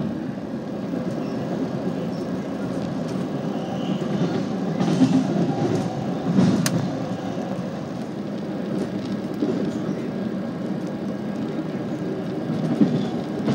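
Steady rumble of a passenger train running on the rails, heard from inside the coach. It swells louder about five to seven seconds in, with a sharp crack, as another train's coaches pass close alongside.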